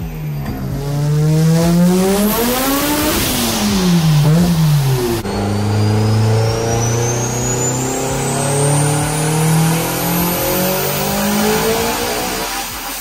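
A turbocharged car engine on a chassis dyno revving up, then blipped up and down a few times. About five seconds in it changes to a Mitsubishi Lancer Evolution X's turbocharged four-cylinder running on the dyno, a fairly steady engine note with a thin high whine that climbs slowly.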